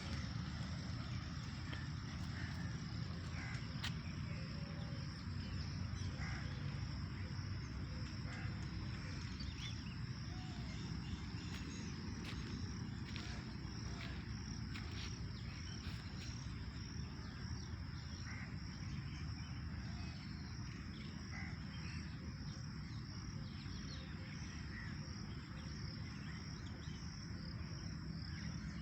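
A steady high-pitched insect trill, crickets, runs without a break, with scattered faint bird chirps and a constant low rumble underneath.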